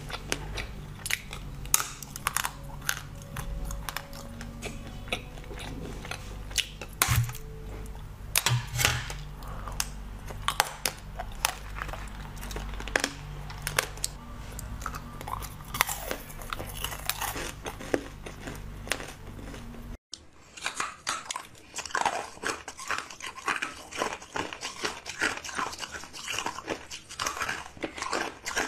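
Close-miked eating sounds: biting and chewing chocolate, a solid bar and chocolate-coated balls, with frequent crisp crunches and clicks over a faint steady low hum. About 20 seconds in, the sound cuts to dense crisp crackling and crunching from frozen jelly sticks.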